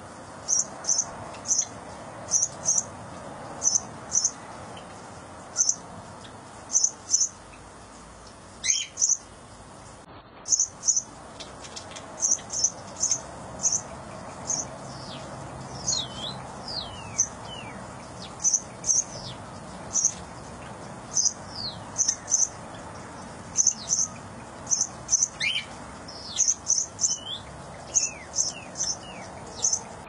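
Birds chirping: short, high chirps repeated about once or twice a second, often in pairs, with a few falling whistled calls mixed in.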